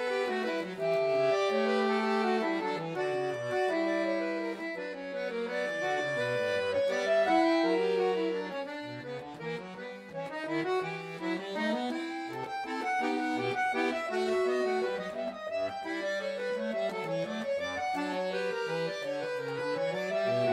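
Concert button accordion played solo: several melodic lines moving at once in a running flow of notes, dropping softer for a moment near the middle.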